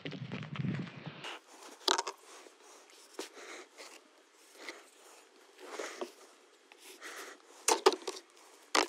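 Felt-tip marker scratching over cardboard as it traces around a telescope tube, with rustling and handling of the tube and box, and a few sharp knocks about two seconds in and near the end.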